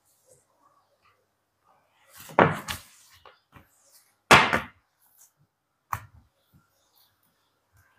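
Knocks and clunks of a glass bottle and a dish being lifted and set back down on a glass-topped coffee table while it is wiped with a cloth: a couple of knocks about two and a half seconds in, the loudest a little after four seconds, and a short sharp one at six.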